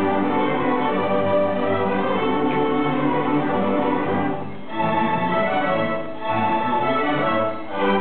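Student string orchestra of violins and cellos playing together, with sustained bowed notes that briefly break off three times in the second half.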